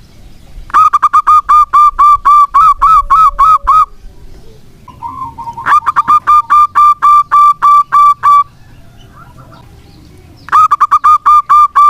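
Zebra dove (perkutut) calling loudly in three bursts of rapid, evenly repeated notes, about four or five a second, each burst lasting about three seconds; the last burst starts near the end.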